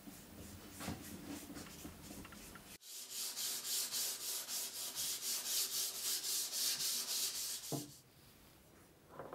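Hand sanding of a wooden pine bench panel: quick back-and-forth strokes, about five a second, starting about three seconds in and stopping about five seconds later.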